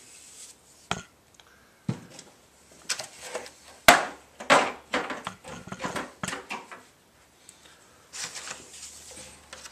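Handling knocks and scrapes of a metal paint can and a plastic paint tray: a brush wiping the can's rim, then the can set down and the tray moved. A sharp knock about four seconds in is the loudest sound, followed by a run of small clicks and a brief scraping rustle near the end.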